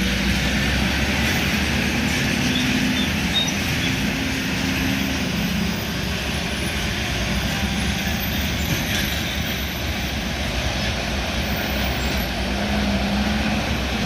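Steady heavy road traffic: truck and car engines running with a low hum and tyre noise, without a break.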